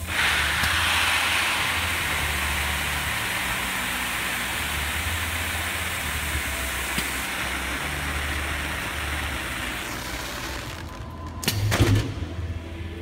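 Rice grain pouring from a weigh hopper down the filling spout into a clamped bag: a steady rushing hiss that starts suddenly and tails off after about ten seconds, over a low machine hum. A few sharp knocks come near the end.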